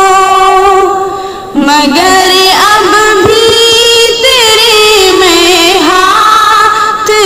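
Background music: a song with long, wavering held notes sung over accompaniment, dipping briefly about a second in.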